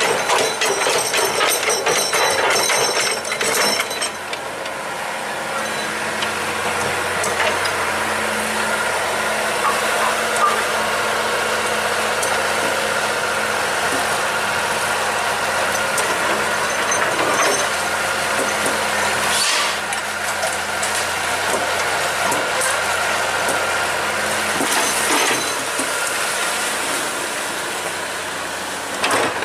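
Excavator engine running steadily under work, with a flurry of metallic clanks and knocks in the first few seconds and two short hisses later on.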